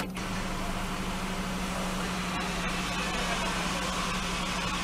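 Steady hum of a car idling in a queue, heard from inside the car, with a single sharp click right at the start.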